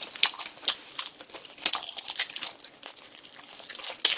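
Close-miked mouth sounds of eating spicy chicken feet by hand: an irregular string of short, sharp wet clicks and small crunches as skin and cartilage are bitten and chewed off the bone, the sharpest one near the end.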